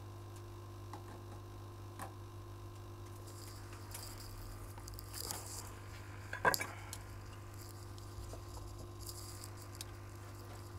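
Steady low electrical mains hum with faint small clicks and taps of hand tools at a microsoldering bench, a few soft high rustles, and one sharper click about six and a half seconds in.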